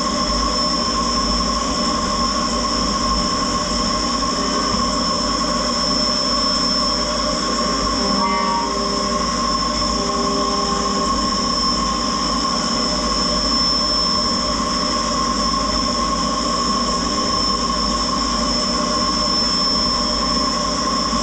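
Doosan Puma 2600SY II CNC lathe's live milling spindle running steadily while a small ball end mill cuts a slot in a Teflon part, with the axes moving in simultaneous four-axis motion. It makes a constant high-pitched whine over a low machine hum.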